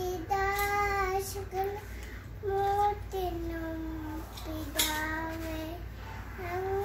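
A small girl singing solo and unaccompanied, in long held notes with short breaths between them.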